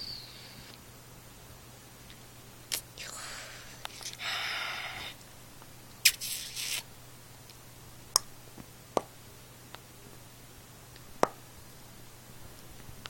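Cats playing on a bed: short rustling, scratching noises and a few sharp clicks, over a steady low hum.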